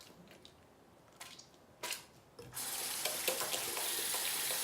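A few light knocks, then a sink tap is turned on a little over halfway through and runs steadily.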